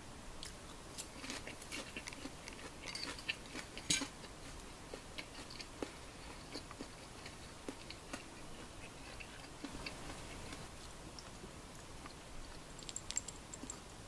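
A person chewing crispy fried chicken (karaage): many short crackles, densest in the first few seconds and sparser after. Near the end, a brief cluster of sharp, high clinks of ice in a glass.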